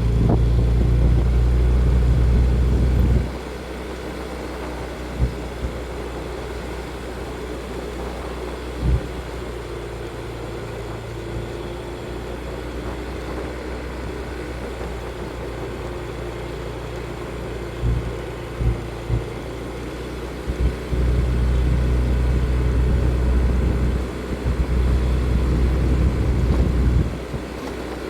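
Motorcycle running, with heavy low rumble surging on the microphone: strong in the first three seconds, then a few short thumps, and two long spells of rumble again in the last third.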